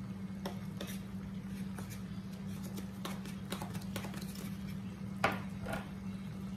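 Kitchen handling noises: a few light clicks and knocks over a steady low hum, with one sharper knock about five seconds in.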